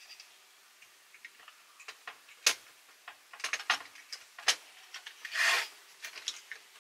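Small clicks and taps of plastic and metal parts as a cassette recorder's opened chassis and tape mechanism are handled. There is a sharp click about two and a half seconds in, a run of clicks after it, and a brief scraping rub a little after five seconds.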